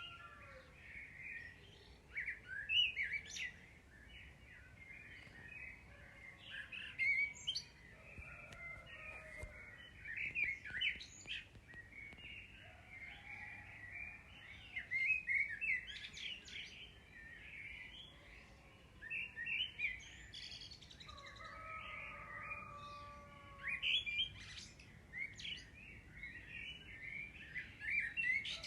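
Many small birds chirping and twittering without pause, with a few lower, slower whistled notes now and then.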